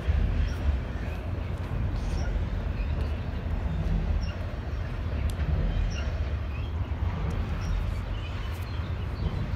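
Steady low rumble of a Norfolk Southern freight train moving away after its last car has passed, with a few faint bird chirps.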